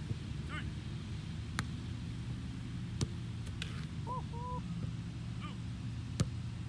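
Soccer ball being kicked: three sharp strikes, the second about a second and a half after the first and the last, the loudest, near the end, over a steady low outdoor rumble. Faint bird calls come in between.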